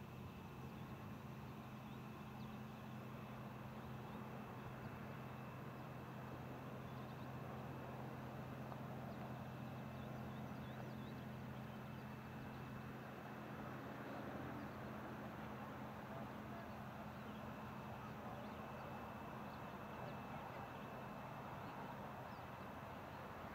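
Faint outdoor ambience: a steady low drone of a distant engine under a soft hiss, with a few faint high chirps.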